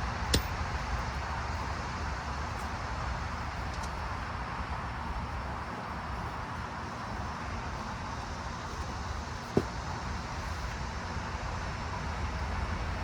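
Steady low background rumble of distant road traffic, with two sharp clicks: one just after the start and one about nine and a half seconds in.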